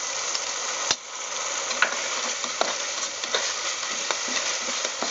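Onion, tomato and ginger-garlic paste sizzling in hot oil and ghee in an aluminium pressure cooker. It is being stirred with a metal spoon that clicks and scrapes against the pot about once a second.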